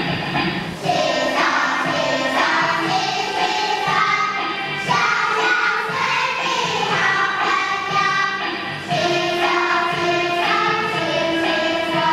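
A children's choir singing a Mandarin handwashing song over a backing track, the voices coming in about a second in.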